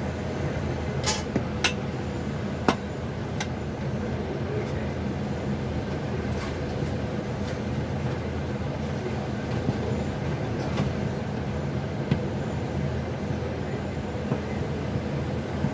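Chakli dough being stirred with a spoon in a steel pot on a gas stove: a few sharp clicks of the spoon against the pot, mostly in the first few seconds, over a steady low rumble.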